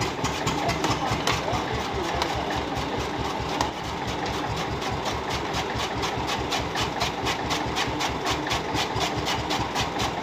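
Old diesel tractor engine running steadily with an even beat of about five pulses a second, under load as it drives a chaff cutter by a belt from its raised rear wheel.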